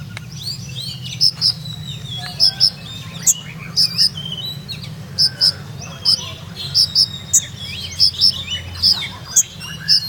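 A male sunbird kept as a 'kolibri ninja' singing a fast twittering song of short high chirps and slurred notes, with sharp paired high notes repeated about once a second. A steady low hum runs underneath.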